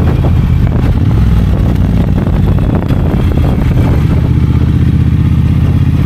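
Triumph Bonneville Bobber's 1200 cc parallel-twin engine running steadily while the motorcycle is ridden, with a throaty exhaust note.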